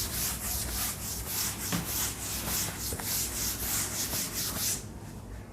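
Rhythmic back-and-forth rubbing on a writing surface, about three strokes a second, stopping shortly before the end.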